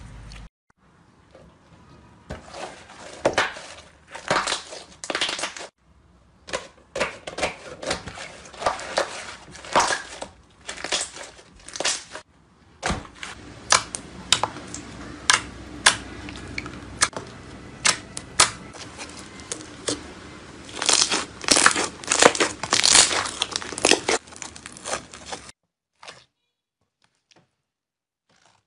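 Hands squeezing and pressing clear slime: irregular sticky pops, clicks and crackles, with louder clusters here and there, in several stretches split by short breaks. The sound stops about three seconds before the end, leaving near silence.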